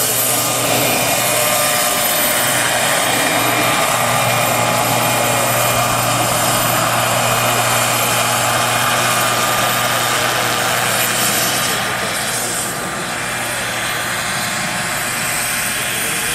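Turbine-powered radio-controlled scale Agusta 109 helicopter flying low: a steady high-pitched turbine whine over the rotor noise, dipping slightly in level about twelve seconds in.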